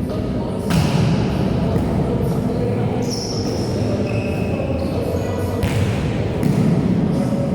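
Volleyball being hit during an indoor game, with sharp smacks about three-quarters of a second in and again near six seconds. They sit over a steady echoing hall din of players' voices and movement, with a couple of short high squeaks in between.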